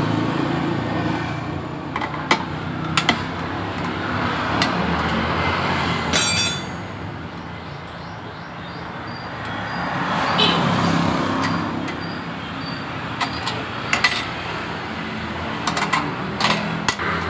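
Hand tools clicking and knocking on a motorcycle's fuel pump mounting and tank as the pump is unbolted and lifted out, with a quick run of ticks about six seconds in. Road traffic in the background swells twice.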